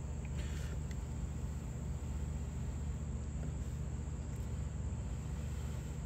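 A mini ferro rod scraped against the back of a Swiss Army knife's saw blade to throw sparks, one short scrape about half a second in, over a steady low hum.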